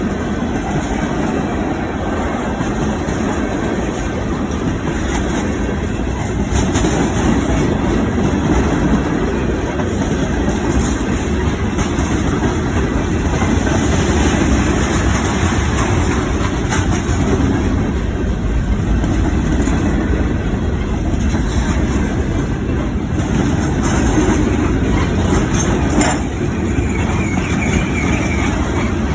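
Train running along the rails: a steady, loud rumble with a few faint clicks.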